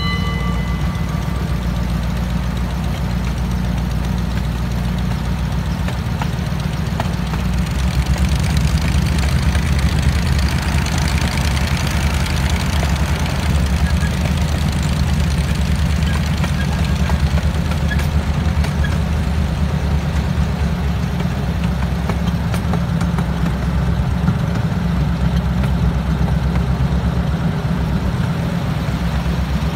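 Miniature train running along its track, a steady low engine drone with the rumble of the cars, heard from aboard a passenger car. It grows a little louder about eight seconds in.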